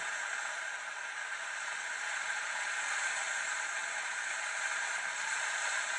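Steady hiss of steam escaping through the lid valve of a Moulinex Cook4me electric pressure cooker as it preheats toward high pressure.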